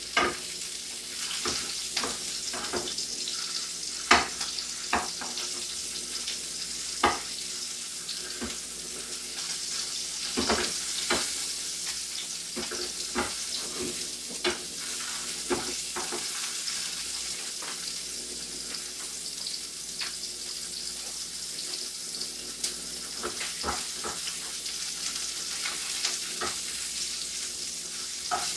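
Sausages frying in hot oil in a pan: a steady sizzling hiss broken by irregular sharp pops and clicks, most of them in the first half.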